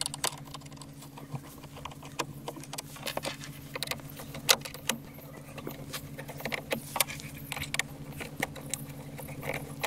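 Screwdriver working the metal mounting screws of a car-dashboard radio bay: scattered small metallic clicks and scrapes. A steady low hum runs underneath.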